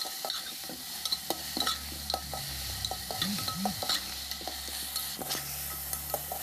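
A metal ladle stirring and scraping mutton pieces and chopped onion in an aluminium pressure cooker pot, over a steady sizzle of frying oil. The ladle clicks and scrapes against the pot two or three times a second.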